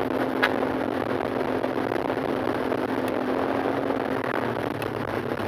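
Yamaha XMAX 300 scooter's single-cylinder engine droning steadily at cruising speed under a steady rush of riding wind on the microphone, with one brief click about half a second in.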